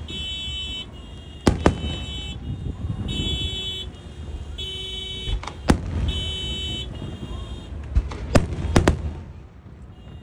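Car alarm sounding in a repeating on-off pattern of high tones, set off by the noise of the fireworks. Several sharp firework bangs cut through it, a pair about a second and a half in, one near six seconds and two close together near eight and a half seconds, over a low rumble.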